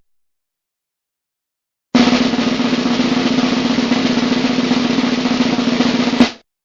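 Drum roll sound effect: a snare roll of about four seconds that starts abruptly after two seconds of silence and ends on a single sharp hit.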